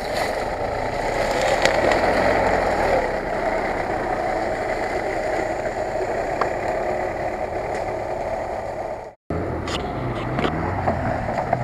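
Lada Niva 4x4's engine running steadily as it drives along a rough, overgrown forest track. After a sudden cut about nine seconds in, an off-road vehicle's engine runs on with a brief rise and fall in pitch while a 4x4 tows a stuck car on a rope.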